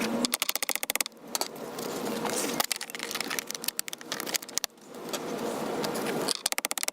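Metal-and-plastic gear housing of a BMW E36 power seat being worked onto its cover: a quick run of clicks near the start and again near the end, between stretches of steady scraping.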